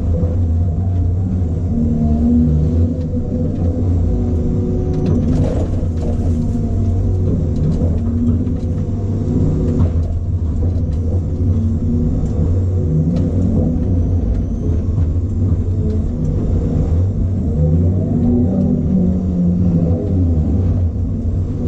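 A John Deere knuckleboom log loader's diesel engine and hydraulics working under load, heard from inside the operator's cab. The low engine hum runs steadily while higher tones rise and fall now and then as the boom swings logs onto a log truck.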